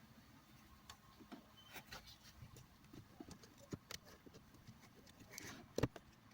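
Irregular light clicks and knocks of hands working plastic car interior trim, with one louder knock near the end.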